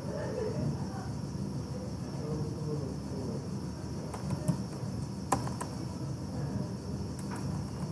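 Two single computer-keyboard keystrokes, sharp clicks about a second apart, over a steady background of low hum and a thin high-pitched tone.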